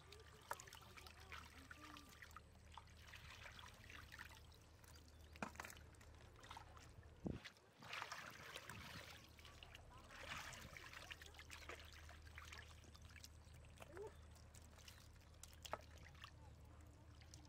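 Faint splashing and trickling of muddy water as a plastic basket is dipped and scooped through shallow water, with a few louder swishes about halfway through.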